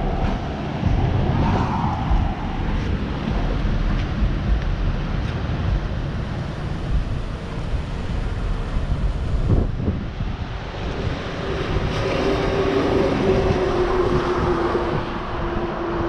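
Wind buffeting the microphone over the noise of cars passing on the highway, with a steady drone joining in over the second half.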